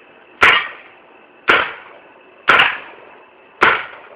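Piranha GTI paintball marker firing four single shots about a second apart, each a sharp pop that fades quickly.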